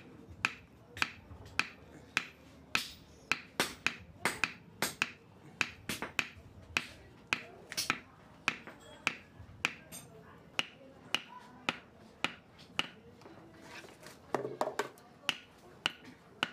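Wooden knife handle knocked butt-first against a steel anvil, driving it down onto the knife's hot tang: a run of sharp knocks about twice a second, spacing out in the second half.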